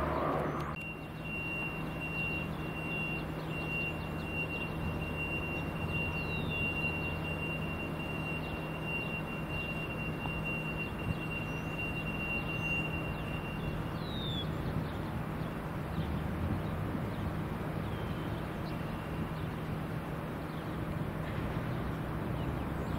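Steady engine hum with a thin high whine held from about a second in until just past halfway, and a few short falling chirps over it.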